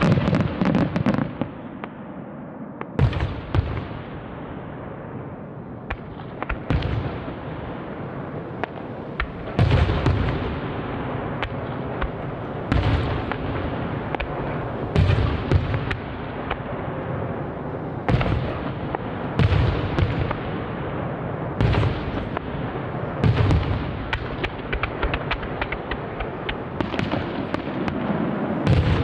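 Aerial fireworks shells bursting one after another, a heavy boom every two to three seconds, with crackling from the bursting stars in between.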